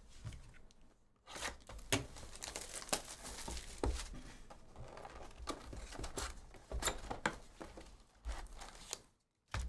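Plastic wrap being torn and crinkled off a cardboard Panini Prizm hobby box, then the box lid opened and the foil card packs handled: a busy run of crackles and sharp snaps, with a brief pause near the end.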